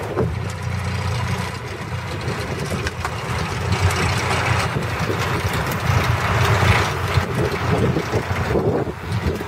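Strong blizzard wind gusting against the microphone: a steady low rumble with hissing gusts that swell and fade.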